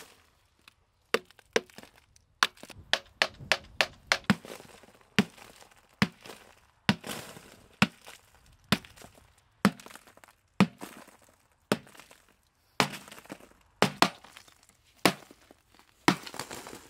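Hammer blows cracking and chipping the concrete fill of an old steel safe: a fast run of blows in the first few seconds, then single heavy blows about once a second, the last ones from a sledgehammer.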